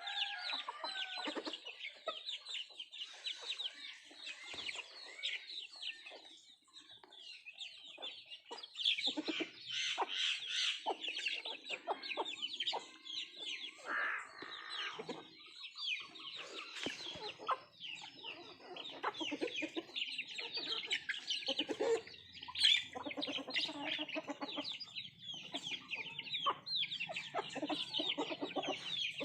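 A flock of native country chickens (nattu kozhi) clucking and calling continuously while feeding, with many overlapping short, high calls.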